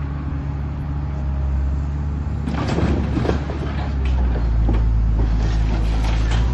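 Diesel engine of a large Sennebogen claw crane running steadily, its note growing stronger a little past halfway as it takes more load. From about two and a half seconds in, a run of irregular clattering knocks joins it.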